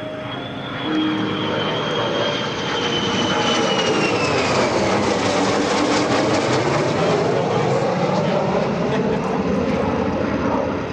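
F-35C Lightning II jet flying past, its Pratt & Whitney F135 turbofan swelling to a loud roar about a second in and easing off near the end. A high whine slides down in pitch as the jet goes by.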